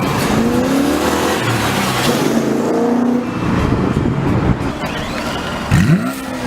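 A sports car's engine accelerating, its pitch rising twice as it pulls through the gears, then a short, loud rev that sweeps sharply up in pitch near the end.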